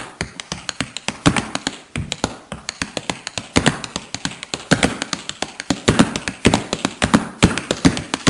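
Irregular series of light, sharp taps and clicks, several a second, with no steady rhythm.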